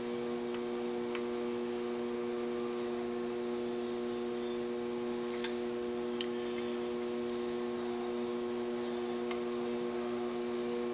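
Electric potter's wheel motor humming steadily as the wheel turns, with a few faint clicks.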